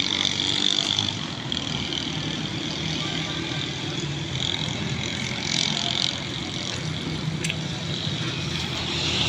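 Steady road traffic noise from vehicles on the road, a continuous low hum and rush.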